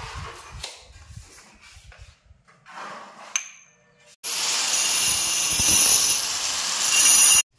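Faint knocks and rubbing, then about four seconds in an angle grinder fitted with a core bit starts boring a hole into a stone stair tread for a railing post: a loud, harsh grinding with a high whine, which cuts off abruptly near the end.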